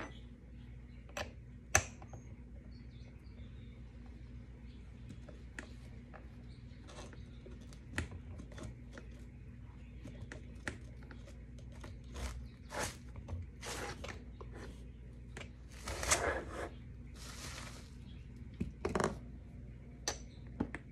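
Scattered clicks and light knocks of a roller skate's wheels and axle parts being handled as the wheels are changed, with a few short rustling bursts in the second half.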